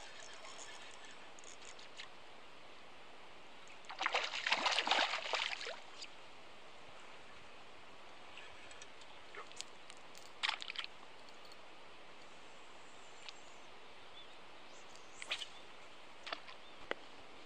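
Lake water sloshing and splashing for about two seconds, starting about four seconds in, then a few brief smaller splashes and clicks.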